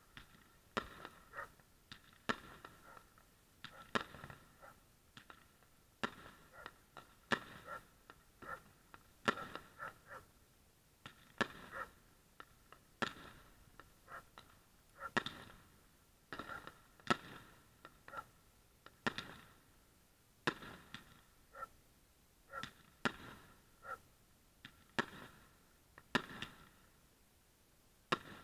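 New Year fireworks going off: an unbroken, irregular series of bangs, at times several a second, some near and loud, others fainter and farther off.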